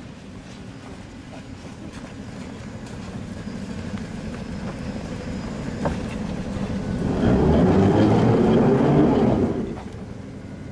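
ZIU-9 trolleybus straining to pull out of a snow drift: a rumble from its electric drive and tyres in the snow. It builds slowly, swells loud about seven seconds in and falls away after about two and a half seconds.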